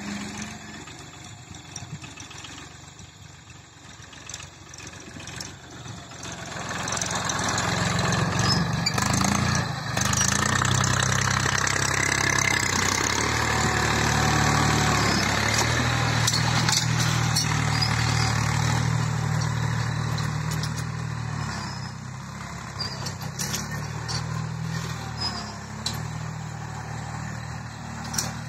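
Force Orchard tractor's diesel engine running steadily under load as it pulls a tine cultivator through soil. It grows loud about a third of the way through as it passes close by, then eases off as it moves away.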